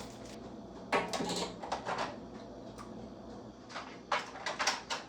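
Household objects being handled while tidying: a loud clattering knock about a second in, more rattles and knocks after it, and another cluster of knocks about four seconds in.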